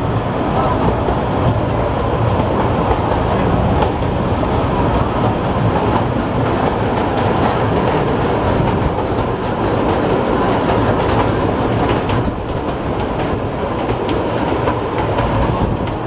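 Kurobe Gorge Railway narrow-gauge trolley train running, heard from one of its open passenger cars: a steady rumble of wheels on the rails with constant fine clicking and rattling.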